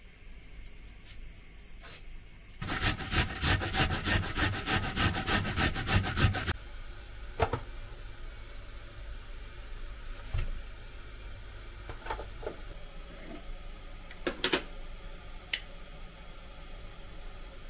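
An onion being grated: rapid rasping strokes for about four seconds, starting a few seconds in. After that come scattered light clicks and knocks of containers and utensils being handled.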